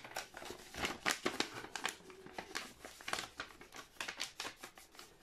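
A sheet of paper being folded into a paper airplane, its creases pressed down by hand: quick, irregular crinkling and rustling.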